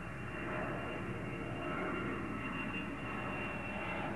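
Twin-engine jet airliner flying overhead: a steady rushing engine noise that swells slightly midway.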